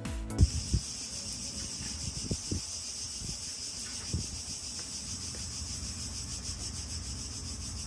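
Insects chirring steadily in a high, even drone, with a few dull knocks in the first few seconds.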